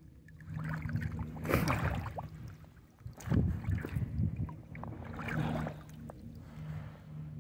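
A boat motor runs with a steady low hum. Three louder bursts of noise break it as a sturgeon is handled and thrashes.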